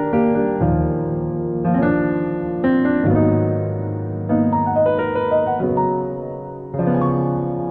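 Background piano music, with a new chord or note struck about every second.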